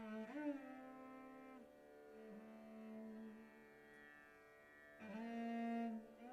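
Solo cello bowing a slow melodic line of long held notes, with a slide up in pitch about a third of a second in.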